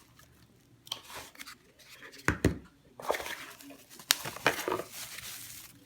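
Packaging being handled and unwrapped to get the battery out: a few sharp clicks and knocks, then longer stretches of rustling and crinkling over the last few seconds.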